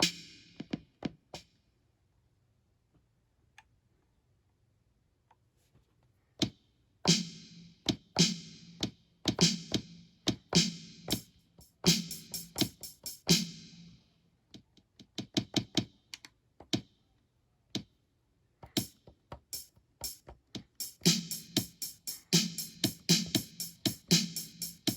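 Drum sounds of an Akai MPK Mini Play MK3 mini keyboard played live as a loose, uneven pattern of hits. After a pause of a few seconds near the start, the hits resume, and they turn into a fast run of repeated strikes near the end.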